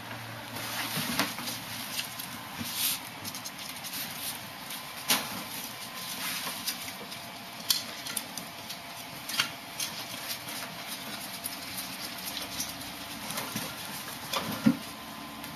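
A kitten and ferrets scrambling about in a wire pet cage: irregular scratching and scuffling, with scattered knocks and rattles against the cage, its plastic tray and its wooden ramp. The loudest knock comes near the end.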